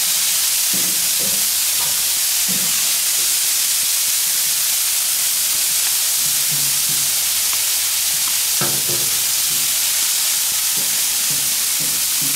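Diced vegetables, broccoli and sausage links sizzling steadily on a hot flat-top griddle while the vegetables are turned with metal tongs, with a few short clicks of the tongs against the steel.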